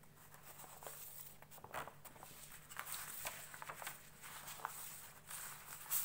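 Sheets of paper rustling and sliding over one another as they are shuffled and moved on a table, in short irregular scratchy bursts.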